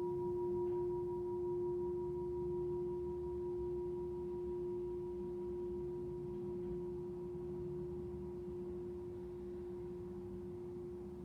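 A Tibetan singing bowl ringing on in one steady tone, with fainter higher overtones, slowly fading away.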